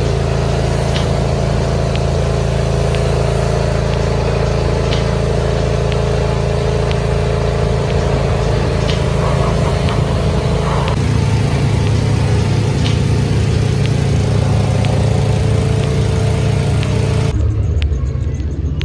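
An engine running steadily at a constant speed, with an even low hum. About seventeen seconds in the sound cuts abruptly to a different, lower engine rumble.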